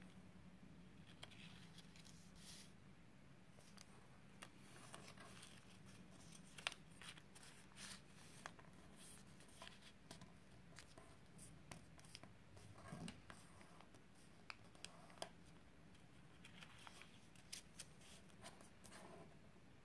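Faint rustling and scattered soft clicks of a small sheet of origami paper being folded and creased flat with the fingers, over a low steady hum.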